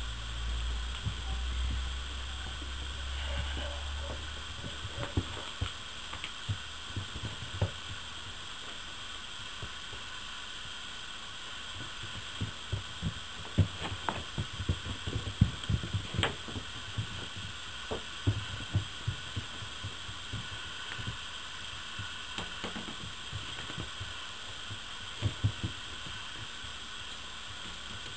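Puppies scuffling and tugging at a rag toy on wood-shaving bedding: scattered soft thumps and knocks from paws and bodies, thickest in the middle stretch, over a steady hiss, with a low rumble in the first few seconds.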